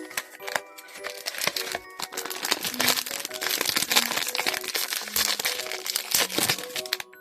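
Crinkling and crackling of a blind-box figure's plastic or foil wrapper being handled and opened, heaviest in the middle and latter part, over background music.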